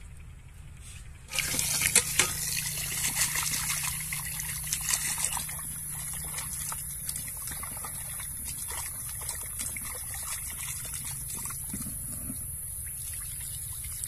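Water splashing and trickling in a metal pot as raw pieces of small birds are washed and rubbed by hand. The splashing starts abruptly about a second in, loudest for the first few seconds, then carries on more steadily.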